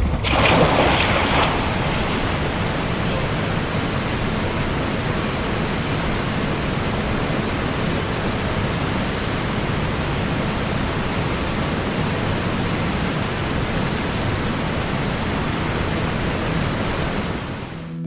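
Steady rush of water pouring through the breach of a collapsed dam spillway gate, a little louder in the first second or so.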